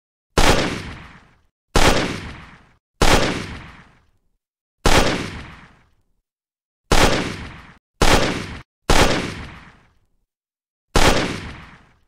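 Gunshots fired as single shots, eight in all at uneven intervals. Each is a sharp crack followed by an echoing tail lasting about a second, and two of the tails cut off abruptly.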